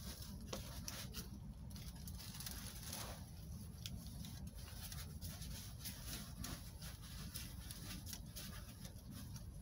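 Faint rustling of plastic sheeting and straw with scattered small clicks, over a low steady rumble.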